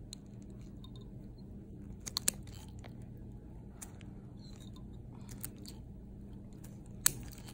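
Nail nippers snipping through a thick, fungus-infected toenail: sharp crunching snips, a quick cluster of three about two seconds in and a loud one near the end.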